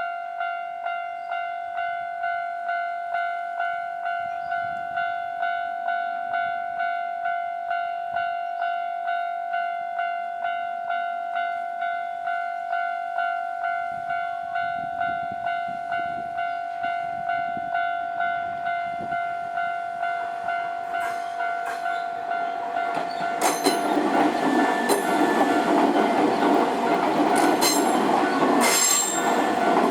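Japanese level crossing's electronic warning bell ringing, a repeated ding about twice a second. From about twenty seconds in a train approaches and passes over the crossing, louder than the bell, its wheels clacking over the rail joints.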